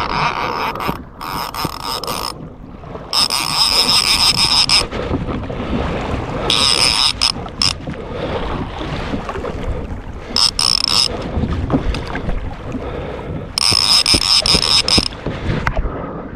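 Wind buffeting the microphone over open water, broken by about six short bursts of a mechanical whirring, each lasting a second or so and coming at uneven gaps.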